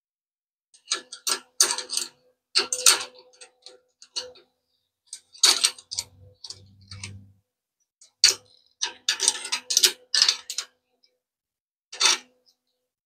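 Metal parts and hand tools being handled: irregular clusters of clinks and clanks, many leaving a short metallic ring, with a brief low hum about halfway through.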